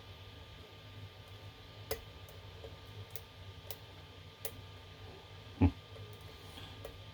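Abus Eurolock padlock being picked: scattered small metallic clicks and ticks from the pick and tension tool working the pins, which are held in a false set. About two-thirds of the way through there is one louder dull knock.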